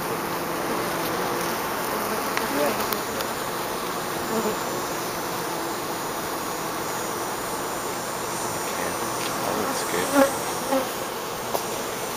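Honey bees humming at a hive entrance, with a few short, louder buzzes, the loudest about ten seconds in.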